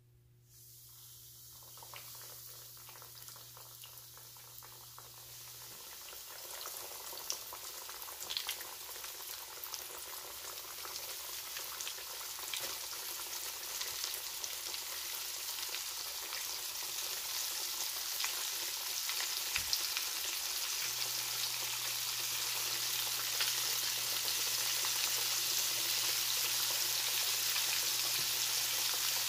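Flour-dredged chicken wings deep-frying in hot oil: a hiss and crackle that starts about half a second in and grows steadily louder as more pieces go into the oil, with scattered sharper pops.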